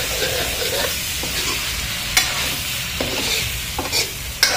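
Goat-meat curry sizzling in a steel kadai while a metal spoon stirs and scrapes through it, with a few sharp clinks of the spoon against the pan.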